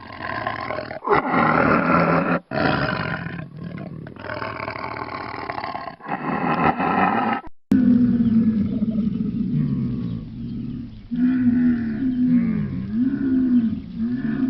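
Animal calls: harsh, rough roars for about seven seconds, then after an abrupt cut a lower, pitched call that wavers up and down.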